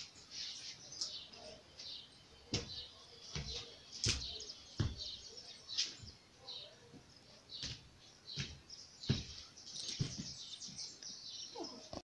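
Bare feet landing on a tiled floor in irregular thumps, about one a second, as children hop and step along a row of shoes. Short high bird chirps sound throughout.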